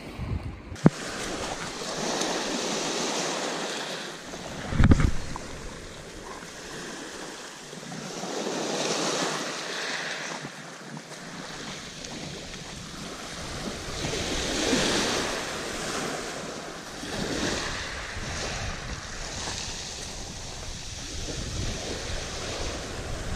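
Small waves washing up and drawing back over a shingle beach, swelling and fading every few seconds, with wind on the microphone. A sharp click just under a second in and a heavy thump about five seconds in, the loudest moment.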